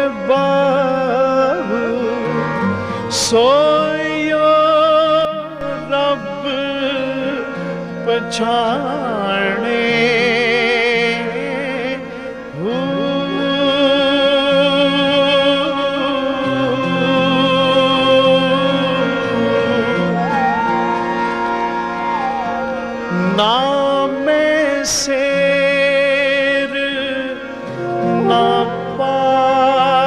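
A man singing a Punjabi Sufi song in a highly ornamented style, with long wavering runs, over a harmonium that holds steady chords shifting every second or two.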